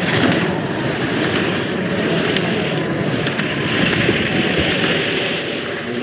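Slalom skis carving and scraping across the hard, icy race course in a steady hiss, with a few sharp clacks as slalom gates are struck.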